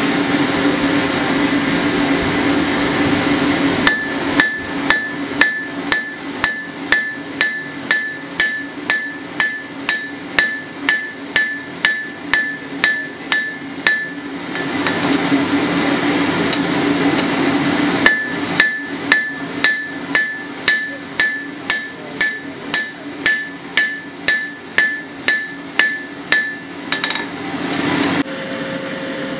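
Ball-pein hammer striking a red-hot steel bar on an anvil at about two blows a second, each blow ringing off the anvil. The blows come in two long runs with a pause of a few seconds between them. A steady hum from the forge blower runs underneath.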